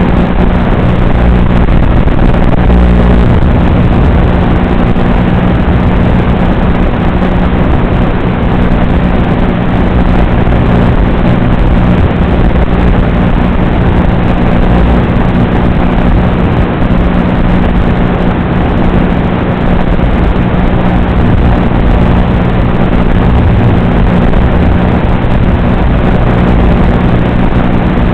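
Loud, unchanging hiss with a constant low buzz underneath: the audio channel of an analog FPV video link recorded by the goggles' DVR, carrying static rather than any sound from the quad. It does not rise or fall with the flying.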